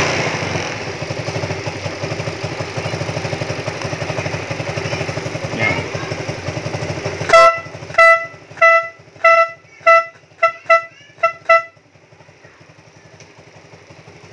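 A scooter engine idling, then about seven seconds in a newly installed twin-tone snail horn, wired through a relay, honks about nine short times in quick succession over some four seconds, the first honk the loudest.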